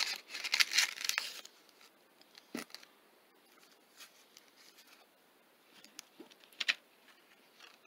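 Rustling as hands handle packaging and the parts of a small zippered carrying case for about the first second and a half, then a few light clicks and taps as items are picked up and set down.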